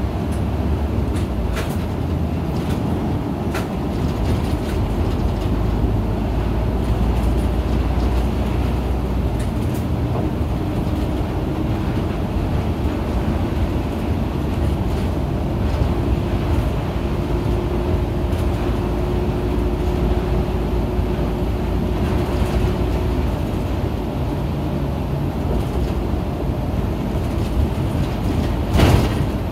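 Isuzu Erga (KL-LV280N1) city bus heard from inside the cabin while driving: steady engine and road rumble with small rattles, a faint steady whine through the middle, and one loud knock near the end.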